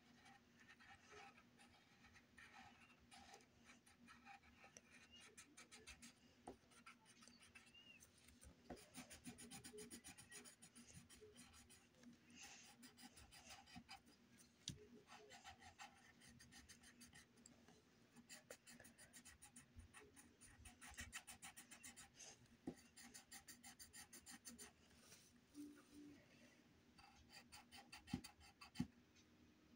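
Faint scratching of a coloured pencil shading on paper in quick, even back-and-forth strokes, with a couple of knocks near the end.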